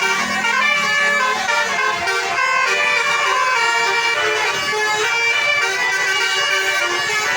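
A bus's 'telolet' basuri horn, a set of multi-tone horns, playing a melody without pause, its notes stepping up and down.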